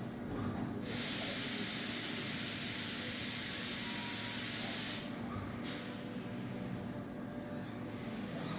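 DMG DMF 300 Linear vertical machining centre running with a steady hum; about a second in, a loud even hiss of air or coolant spray starts and cuts off about four seconds later.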